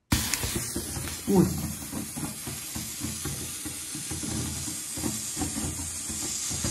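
Sparkler fountain candle on a birthday cake catching suddenly and burning with a steady hiss and fast crackle of sparks.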